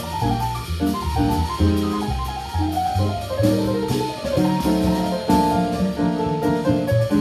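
A small band playing live jazz: keyboard played piano-style over drum kit, with cymbal strokes throughout and low bass notes moving underneath.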